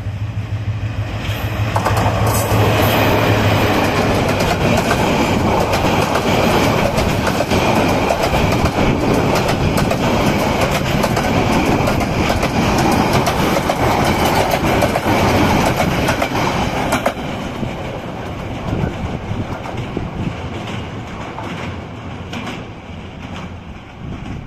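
Diesel-hauled express passenger train passing at speed close by. A steady low engine drone as the locomotive goes by gives way to a loud, dense rattle and clatter of the coaches' wheels on the rails. The clatter drops sharply about two-thirds of the way through as the last coach passes, then fades as the train draws away.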